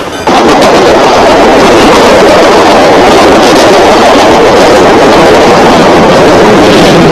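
Steam train sound effect: a loud, steady rushing rumble without clear tones, which comes in at full level after a brief dip at the start.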